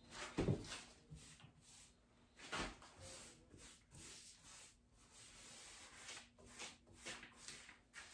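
Paintbrush stroking paint onto a wooden chest of drawers: faint, irregular short rubbing strokes, with two louder bumps about half a second and two and a half seconds in.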